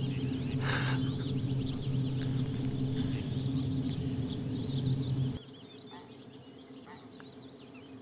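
Several songbirds singing, one of them repeating a short song of falling notes that ends in a trill, twice, over a steady low hum. About five seconds in, the hum cuts off and the birdsong goes on more faintly.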